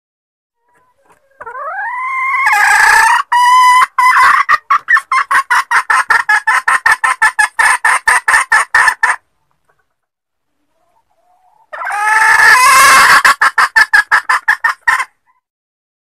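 Junglefowl hen calling twice. Each call opens with a rising cry and runs into a fast series of short clucks, about five or six a second: the first bout lasts about eight seconds, and the second starts near the end and lasts about three seconds. This is a hen call used as a lure to bring wild junglefowl cocks in.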